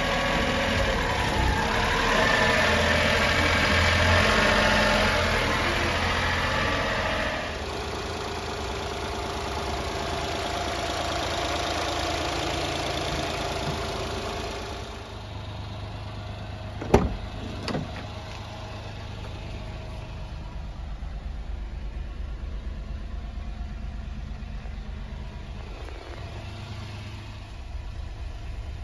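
1996 Honda Acty truck's small three-cylinder engine idling steadily, louder and hissier at first and settling to a low, even hum. Two sharp clicks come about halfway through.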